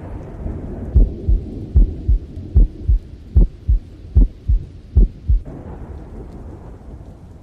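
Heartbeat sound effect: six double thumps, lub-dub, about one beat every 0.8 s, over a low rumbling, rain-like noise that fades away.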